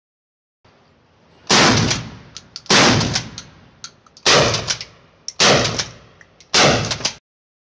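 Smith & Wesson M&P 12 pump-action 12-gauge bullpup shotgun fired five times at a steady pace, about one shot every second and a quarter. Each blast echoes off the walls of an indoor range. Short clacks between the shots come from the pump being worked.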